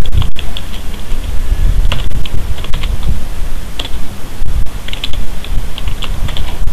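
Computer keyboard typing: irregular keystrokes in short runs, over a steady low rumble of background noise.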